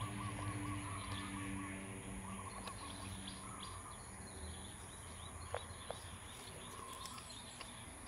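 Outdoor ambience: a bird chirps a rapid run of short notes during the first couple of seconds, over a steady high-pitched whine and a faint low hum. Two faint clicks come about five and a half seconds in.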